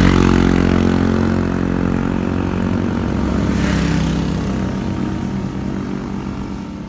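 Road traffic passing close by: a motor vehicle's engine, loudest at the start and fading away, with another vehicle rushing past about four seconds in.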